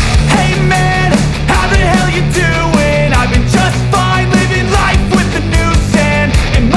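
Loud rock music with a steady drum beat, bass, and a melody line.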